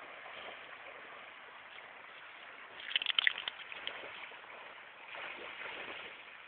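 Faint steady rush of open water and wind, with a brief cluster of sharp clicks about three seconds in.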